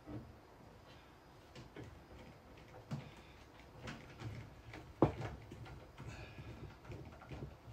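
Screwdriver work on the top vent grille of a High Pointe over-the-range convection microwave: scattered light clicks and scrapes of metal and plastic, with one sharper knock about five seconds in.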